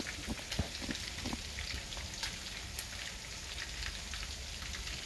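Chicken wings frying in oil in a stainless steel skillet: a steady sizzle full of small crackling pops, with one sharp knock about half a second in.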